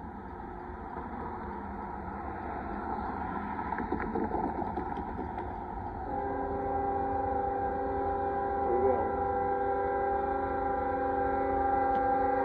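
Horn of an approaching Union Pacific freight locomotive, heard from a distance. About halfway through it sounds one long blast, a chord of several notes at once that holds to the end and grows slowly louder as the train nears the crossing. Before the blast there is only a rough background rumble.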